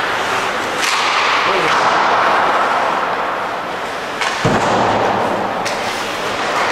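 Hockey arena crowd noise with sharp cracks of play on the ice, one a little under a second in and another near the end, and a heavier crack with a deep thud about four and a half seconds in.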